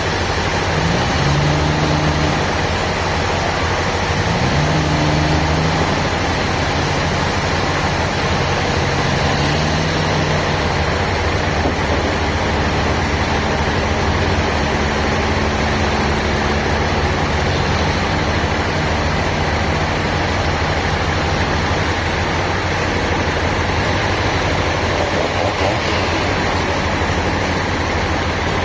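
Heavy machinery engine running steadily with a constant low hum and mechanical noise, typical of sawmill equipment under way.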